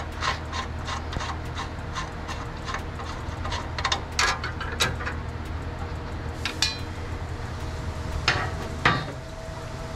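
Hand tools working on a car's rear suspension metal while a trailing arm is being removed: a run of quick light clicks, then scattered louder knocks and clinks.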